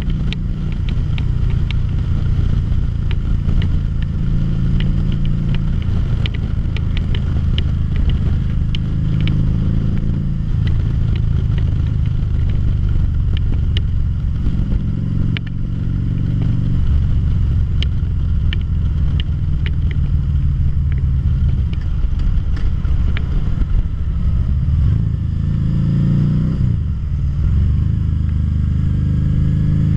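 2013 Harley-Davidson V-Rod Muscle's Revolution V-twin running while riding, heard from the bike itself with road noise. The revs dip and climb again about halfway through and bend up and down several times near the end, with scattered light clicks on top.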